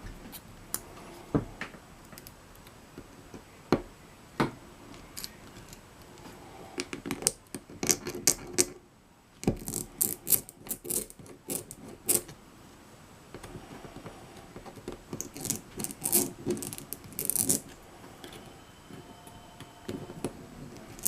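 Small metal tools clicking and scraping against a padlock while it is being taken apart to get a pin-chamber plug and spring out. The clicks and scrapes come in scattered bursts, with a short lull about nine seconds in.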